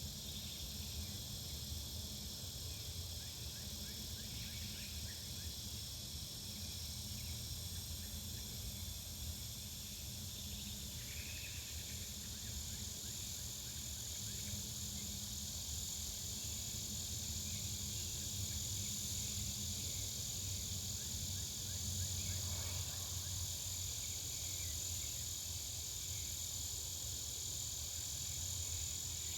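Residential back-yard ambience: a steady, high-pitched chorus of crickets or other insects over a low, steady rumble of distant traffic, with a few brief bird chirps.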